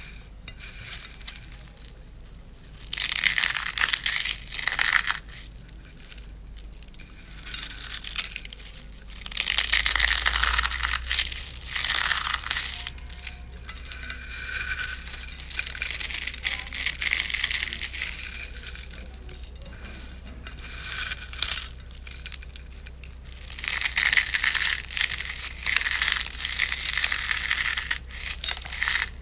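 Dry instant ramen noodles and crispy puffed snacks crushed and squeezed by hand in a glass bowl, crunching and crackling in bursts of a few seconds each, with quieter rustling between squeezes.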